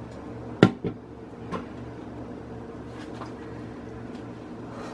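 Steady low hum of a kitchen appliance, with one sharp knock a little over half a second in, a smaller knock right after, and a few faint clicks of kitchenware being handled.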